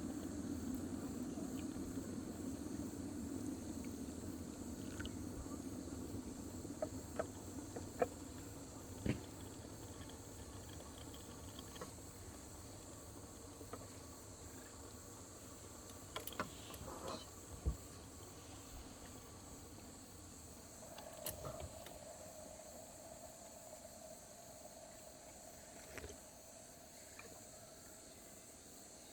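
Insects chirring steadily outdoors, with scattered light clicks now and then. A low rumble fades out over the first several seconds, and a faint steady hum comes in about two-thirds of the way through.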